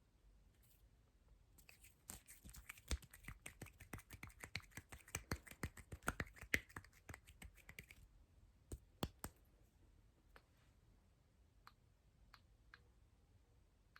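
Close-miked ASMR clicks and snaps: a quick, dense run of crisp clicks several times a second lasting about six seconds, then a few scattered single clicks.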